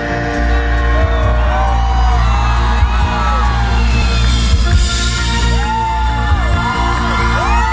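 Live rock band playing a synth-driven song loud through a concert PA, heard from within the crowd, with audience whoops and cheers over the music.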